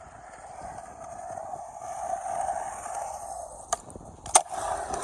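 Skateboard grinding along a curb hubba ledge with a steady scraping rumble, then a click and a single sharp clack of the board landing about four seconds in.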